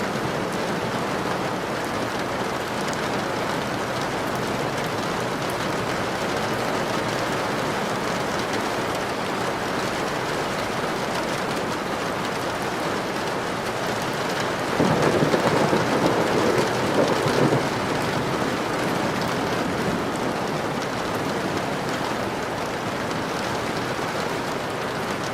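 Steady rain falling, with a roll of thunder about fifteen seconds in that lasts a couple of seconds, louder and deeper than the rain, before the rain carries on alone.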